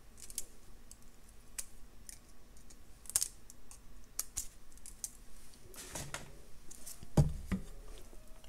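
Light, scattered clicks and ticks of jewelry pliers on wire as a wire loop is gripped and wrapped closed with a couple of turns, with one louder knock about seven seconds in.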